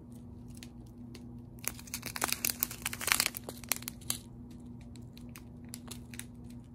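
Clear plastic bags of square resin diamond-painting drills being handled and shuffled, the plastic crinkling. A dense run of crinkling lasts about two seconds in the middle, with scattered lighter crinkles before and after.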